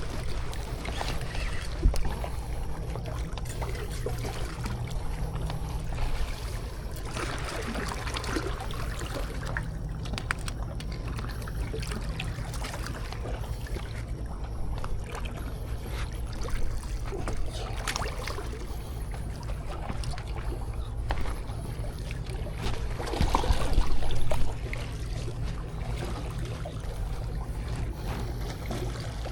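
Seawater sloshing and trickling at the shoreline over a steady low rumble, with scattered small clicks and a louder rush of water about 23 seconds in.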